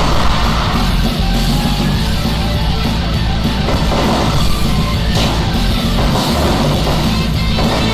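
Loud rock music with a drum kit, playing steadily.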